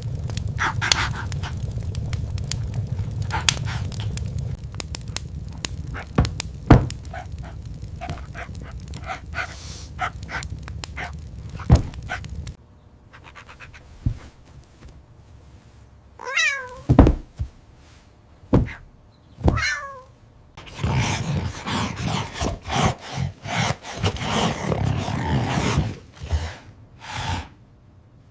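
A cat meows twice, each call falling in pitch, a few seconds apart. Before that, sharp clicks and knocks sound over a low rumble that cuts off suddenly; after it come several seconds of scratchy, scuffling noise.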